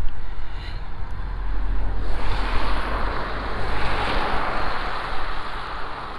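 Wind buffeting the microphone with a low rumble, and a vehicle's tyres hissing through slush as it passes, swelling from about two seconds in and fading away near the end.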